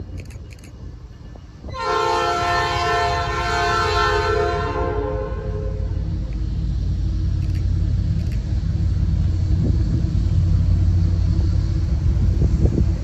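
CN freight train sounding its multi-chime air horn in one blast of about three seconds, starting a couple of seconds in, then the steady rumble of the train rolling past, growing louder.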